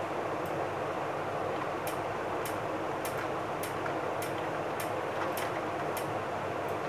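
Steady whooshing room noise, like an air-moving appliance running, with light, sharp ticks at fairly even spacing, a little under two a second.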